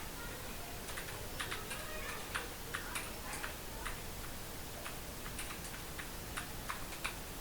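Computer keyboard keys clicking in an irregular run of keystrokes as someone types, with a short pause about halfway through.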